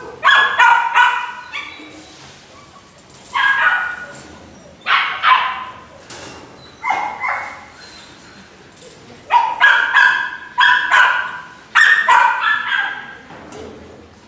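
Belgian Malinois barking in short runs of high-pitched barks with pauses of a second or two between them, and a longer run of barks about two-thirds of the way in.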